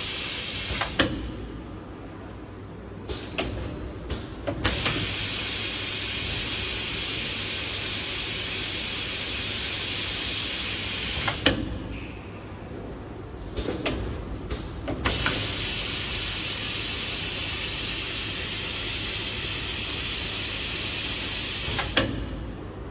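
Steady hiss of compressed air blowing from an automatic laser welding head during its weld passes on a battery module. The hiss cuts off about a second in, again around eleven seconds in and near the end, and in the first two pauses come several sharp clicks and knocks of the machine moving between passes.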